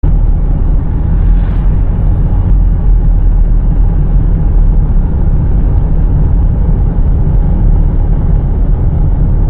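A loud, steady low rumble of outdoor noise, heaviest in the deep bass, with no distinct events.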